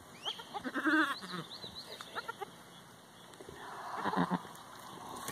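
Boer goats bleating: a wavering bleat about a second in and a second bleat around four seconds in.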